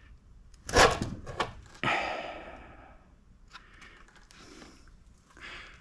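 A plywood pattern board being drawn up out of a rammed green-sand mold: two sharp knocks about a second in, then a rush of sand scraping and crumbling away that fades over about a second, followed by faint rustling and small clicks. The mold is tearing as the pattern lifts, because there is not enough clearance around the pattern.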